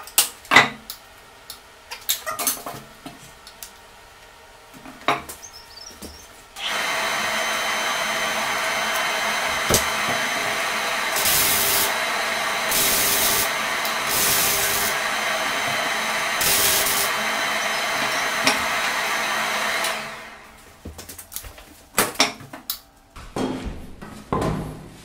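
Welder running on the ATV's steering-column joint: a steady hiss with a faint hum from about seven seconds in, with four short, harsher bursts of arc crackle, stopping about twenty seconds in. Before and after it, knocks and clanks of metal parts being handled.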